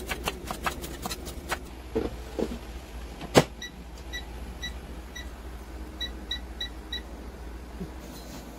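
A knife chopping on a wooden cutting board, several quick strokes in the first second and a half, then one sharp click. An air fryer's touch-control panel then beeps about nine times, short single beeps, as its buttons are pressed to set it.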